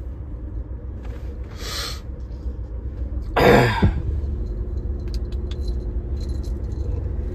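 Low steady rumble of a car heard inside the cabin. A soft hiss comes about a second and a half in, then a loud half-second burst about three and a half seconds in, followed by scattered light clicks.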